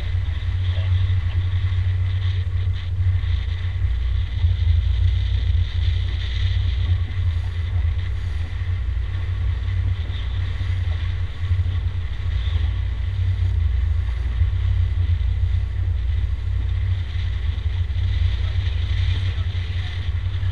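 Motorboat running steadily under way: a constant low rumble with wind buffeting the microphone.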